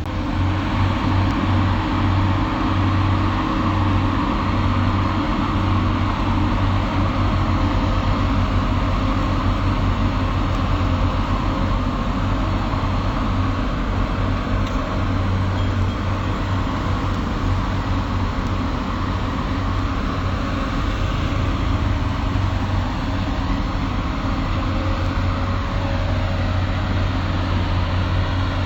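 Excavator's diesel engine running steadily with a strong low hum.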